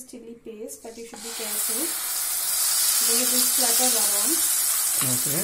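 Kashmiri chili and garlic paste dropped into hot oil in a nonstick pan, sizzling; the sizzle starts about a second in and builds quickly to a loud, steady hiss.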